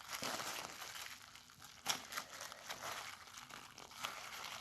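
Plastic bag crinkling as a lump of JB Weld two-part epoxy stick is kneaded and mashed inside it by hand, in irregular crackles with a sharper crinkle about two seconds in.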